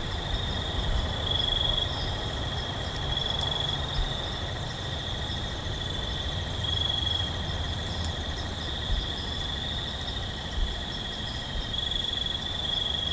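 Continuous outdoor chorus of calling insects such as crickets: a high steady trill that swells and fades in patches, with fainter pulsing trills around it, over a low rumble. A couple of brief clicks come about two-thirds of the way in.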